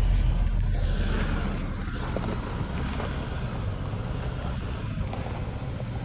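A four-wheel drive's engine running with a steady low rumble, easing off slightly in the first couple of seconds, with a few faint knocks.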